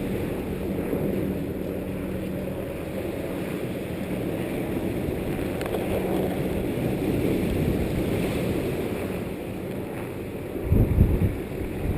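Strong wind buffeting the microphone, a steady rushing noise, with a heavy low gust thump about eleven seconds in.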